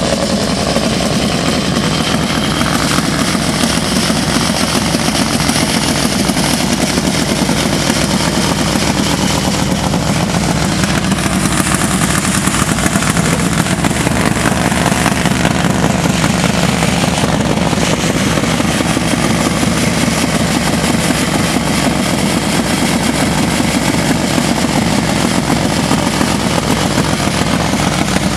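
Motorcycle engine running steadily with a rapid, even pulse and no revving up or down.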